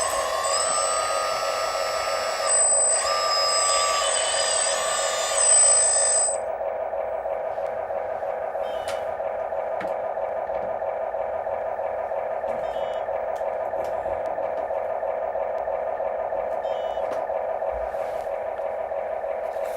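Electric motors and hydraulic pumps of model RC construction machines whining. For the first six seconds several tones step up and down in pitch as the machines work. They cut off about six seconds in, leaving a steady pump hum.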